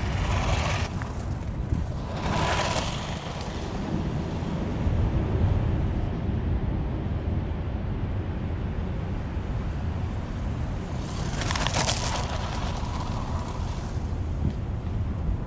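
The electric motor and gears of a WLtoys 144001 RC buggy whining in short spurts of about a second, at the start, at about two seconds in and at about twelve seconds in, over a steady low rumble.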